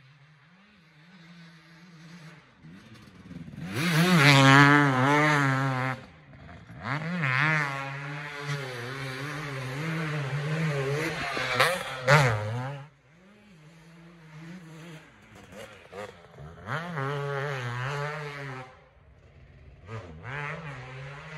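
KTM 250 SX two-stroke motocross bike with a PPS exhaust being ridden hard round the track, its engine revving up and down over and over as the rider works the throttle. It is loudest about four to six seconds in and again from about seven to twelve seconds, with two sharp cracks near the twelve-second mark, then swells again as the bike comes round once more.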